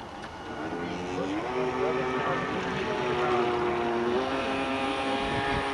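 A motor running with a steady, pitched drone. It grows louder from about a second in, rises briefly in pitch, then holds steady.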